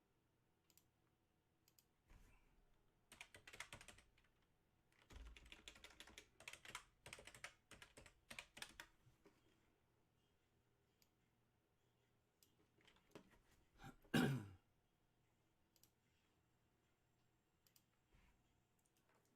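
Computer keyboard typing in several short runs of key clicks, then one louder thump a little past the middle.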